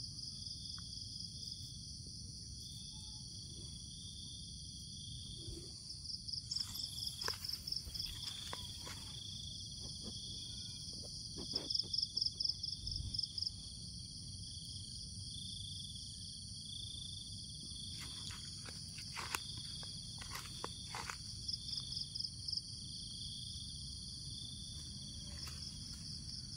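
Chorus of crickets and other insects: a steady high trill, a lower chirp repeating about once a second, and louder pulsing trills that come and go three times. A few faint clicks and rustles come through.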